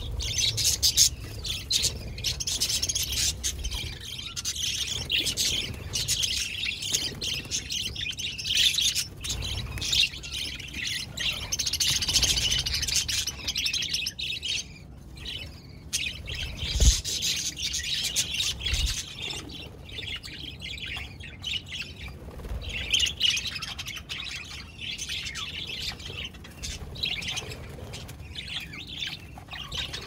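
A flock of budgerigars chirping, many calls overlapping continuously. A single low thump sounds a little past the halfway point.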